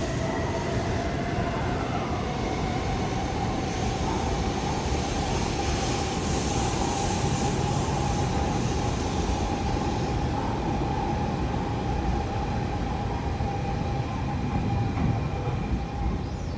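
Tokaido Shinkansen train running, a steady rumble and rushing noise with a whine that rises a little in pitch over the first few seconds, then holds.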